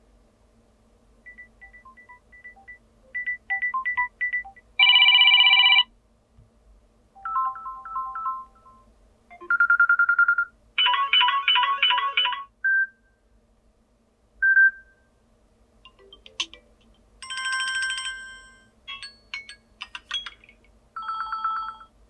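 Samsung Galaxy M13 built-in alarm tones previewed one after another from the phone's speaker: a string of short electronic beeps, chimes and bell-like melodies, each cut off after a second or two as the next one is tapped, with short gaps between.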